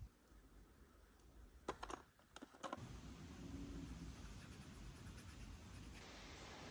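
Near silence: faint room tone with a few soft clicks about two seconds in, then a steady faint hiss.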